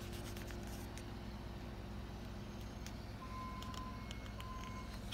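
Pages of a large printed book being handled and turned, with paper rustles mostly in the first second, over a steady low hum. Two short electronic beeps sound about three and a half seconds in.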